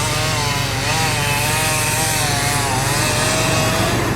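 Chainsaw running under load as it cuts wood, its pitch wavering up and down, over a steady low engine sound.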